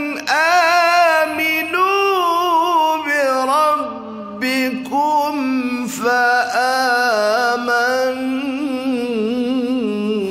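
A man reciting the Quran in melodic tajweed style, long held notes with wavering ornaments that climb and fall, broken by short breath pauses.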